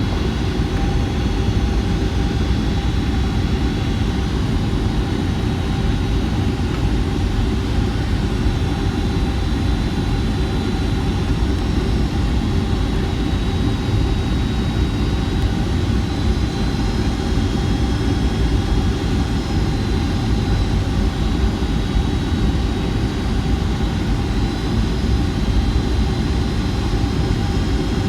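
Steady cabin noise inside a Boeing 757-200 airliner during its approach: a deep, even rumble of engines and airflow, with faint high whining tones that waver slightly.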